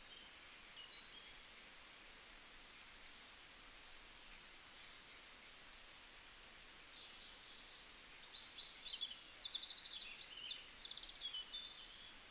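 Birds chirping and calling in the background, with short bursts of quick trilled notes about three seconds in, around five seconds, and again between nine and eleven seconds, over a faint steady outdoor hiss.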